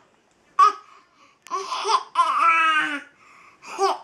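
A baby vocalising in short high-pitched bursts of babbling and laughter, with one longer wavering squeal about two seconds in.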